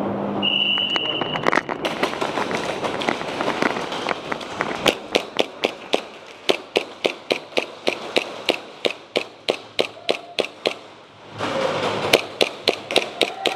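Airsoft guns firing single shots in quick succession, sharp cracks at about four a second, over a steady background din. A brief high tone sounds about half a second in.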